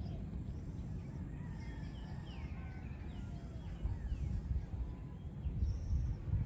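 Low, gusting wind noise on the microphone ahead of a thunderstorm, with a few stronger gusts after the middle. Faint bird calls with short gliding notes come through about two to four seconds in.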